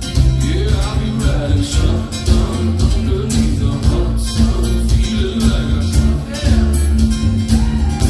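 Live band music: a man singing with an acoustic guitar, backed by electric guitar, a strong bass line and drums keeping a steady beat.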